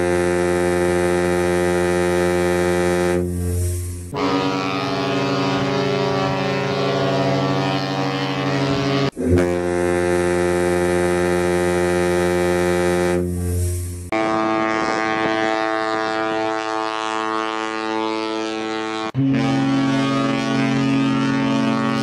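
Long, deep ship's whistle blasts from the SS Norway, the former SS France, each a steady chord with many overtones. The blasts change abruptly from one recording to another about every five seconds. About three seconds before the end, a different ship's horn, the Carnival Destiny's, takes over.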